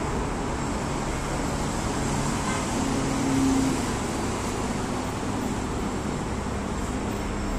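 Steady background noise indoors: a continuous low rumble and hiss, with a brief faint hum about three seconds in.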